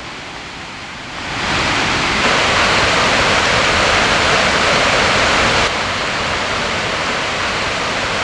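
Gullfoss waterfall's heavy cascade of water rushing and crashing in a steady, dense roar. It swells louder about a second in and drops back a little about six seconds in.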